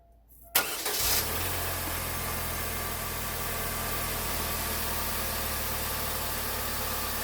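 GM 2.4-litre twin cam four-cylinder engine, freshly fitted with new spark plugs, cranking only briefly and catching about half a second in, flaring up for a moment and then settling into a steady idle. It is a very fast start.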